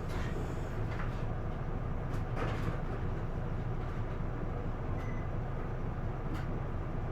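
Inside an Isuzu Erga PDG-LV234L2 city bus: a steady low engine and drivetrain rumble, with a few short rattles and clicks from the cabin.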